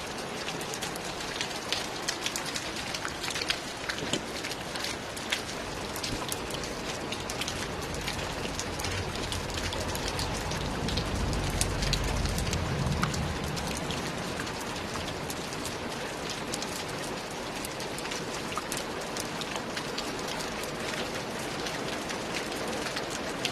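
Steady rain falling, with many individual drops striking close by. A low rumble swells and fades about halfway through.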